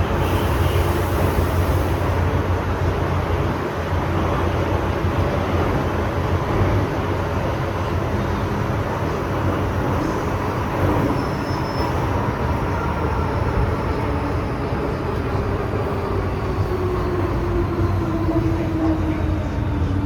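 MTR M-Train underground metro train running at speed, a steady heavy rumble of wheels on rail. Over the last few seconds the traction motor whine falls in pitch as the train begins to slow.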